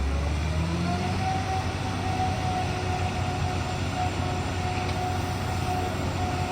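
Concrete truck's diesel engine revving up and then running at steady high revs with a steady whine, as when driving the mixer drum to discharge concrete.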